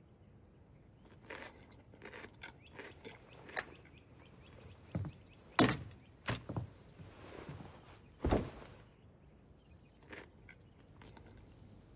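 Footsteps and light knocks from someone moving around a table, faint overall, with a few louder thuds a little past the middle and a last heavy thud about eight seconds in.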